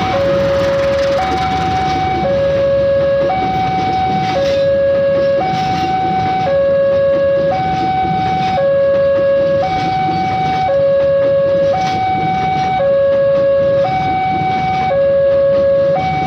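Railway level-crossing warning siren sounding loudly in a two-tone hi-lo pattern, each tone held about a second, over a low steady rumble.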